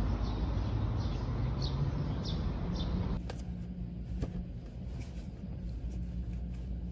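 Outdoor street ambience: a low traffic rumble with a few short bird chirps. About three seconds in it cuts to the steady low rumble inside a car, with a few faint clicks.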